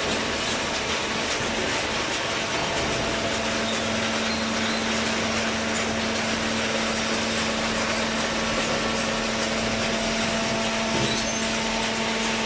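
A hydraulic cardboard baler running steadily, its motor and pump making a constant mechanical noise, with a steady hum that comes in about two and a half seconds in.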